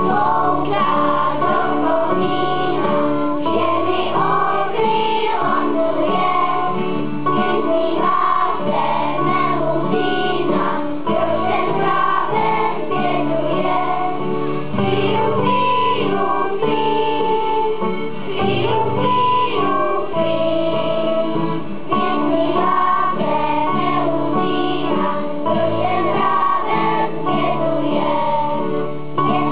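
A children's choir singing together over instrumental accompaniment.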